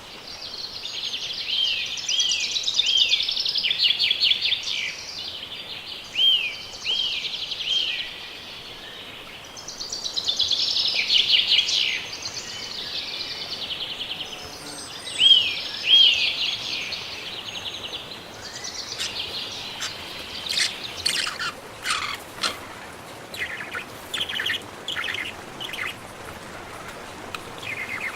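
Wild birds singing: dense chirping and trilling, with a short arching whistled note repeated in groups of two or three. In the second half the song gives way to short sharp chip calls.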